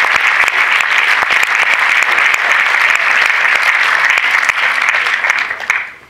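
Cinema audience applauding, a dense steady clapping that dies away sharply near the end.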